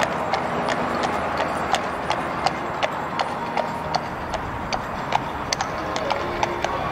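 Horse's hooves clip-clopping on a hard road at a steady walk, about three strikes a second, over continuous street noise.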